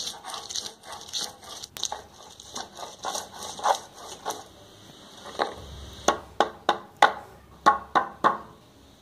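Stone muller grinding garlic and ginger on a flat stone slab (sil-batta): dense, irregular scraping and crunching, then about seven sharp knocks in the second half as the stone pounds the cloves.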